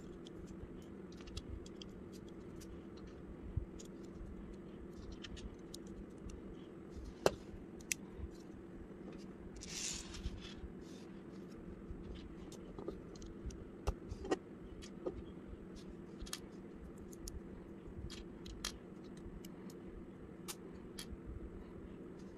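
Plastic Lego bricks clicking and tapping as they are handled, pressed together and set down on a table, in scattered sharp clicks with the loudest about seven seconds in and a brief rustle about ten seconds in. A steady low hum runs underneath.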